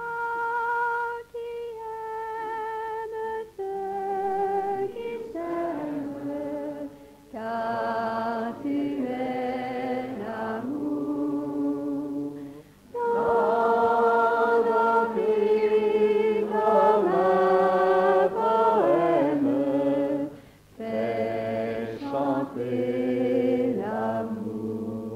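Group of voices singing a slow, chant-like sung prayer in long held notes, phrase by phrase with short gaps between. The singing is fuller and louder through the middle stretch.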